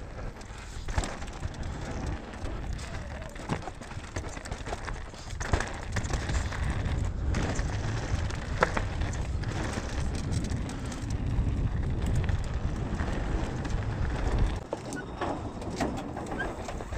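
Mountain bike riding down a dirt trail: a steady low rumble with scattered sharp clicks and knocks from the bike over the ground. The rumble gets louder about five seconds in.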